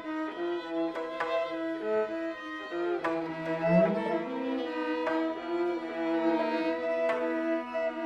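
Composed music for bowed strings: sustained, overlapping notes with sharp attacks about once a second, and a low voice sliding upward in pitch about three and a half seconds in.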